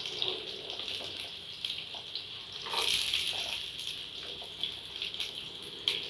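Shallots and garlic cloves frying in hot oil in a stainless steel pan: a steady sizzle with scattered crackles, swelling briefly about three seconds in.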